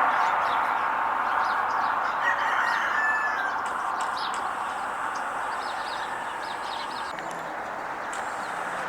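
Outdoor morning ambience: scattered short bird chirps and calls over a steady background of distant noise that slowly fades.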